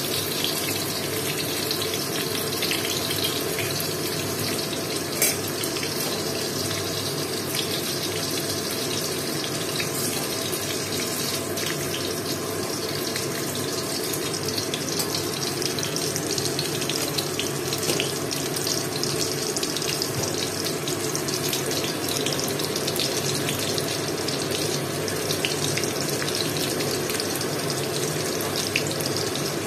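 Potato halves frying in hot oil in a metal kadai: a steady sizzle with fine crackling throughout.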